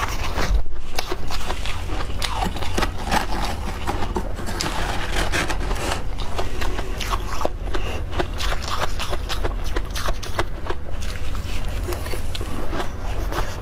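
Close-miked biting and chewing of soft freezer frost: a dense, irregular run of crisp crunches that carries on steadily throughout.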